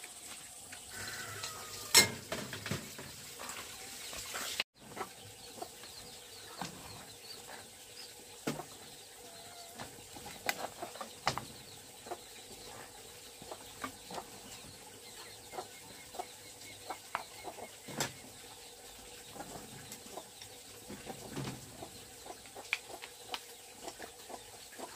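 Chickens clucking, with scattered short clicks and knocks; a sharp knock about two seconds in is the loudest sound. There is a brief dropout near five seconds in.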